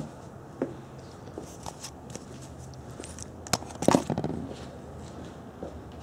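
Scattered light clicks and taps on a hard floor, then a sharp click and a short burst of knocks about four seconds in, the loudest thing heard.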